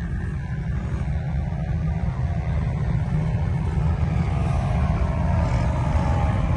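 Sand rail's engine running as it drives over the dunes, a steady low rumble heard from on board, getting a little louder about four seconds in.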